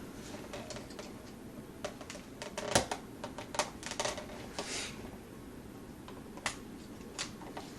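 Scattered small metallic clicks and taps as an Allen key is worked against the trigger-group pin of a pump shotgun's receiver to push the pin out, with the sharpest click about three seconds in and a brief scrape a little later.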